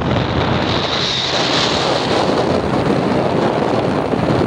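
Steady rush of wind over the microphone on a moving motorcycle, with the engine running underneath.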